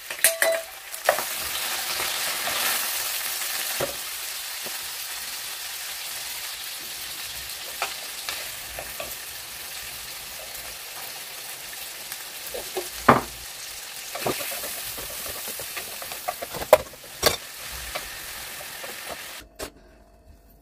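Mackerel sardines and broccoli sizzling in a frying pan as they are stirred with a wooden spatula, with a few sharp knocks against the pan. The sizzling cuts off suddenly near the end.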